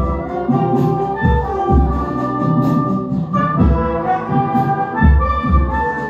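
Brass band music playing a sustained melody, with a large marching bass drum (fuzileiro) struck with padded mallets. Its strokes are heard as low thumps under the brass.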